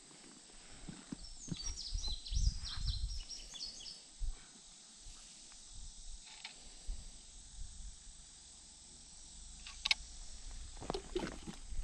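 Quiet outdoor ambience: a bird chirps in quick short notes for about two seconds near the start, over low rumbles and a few light knocks, with a single sharp click near the end.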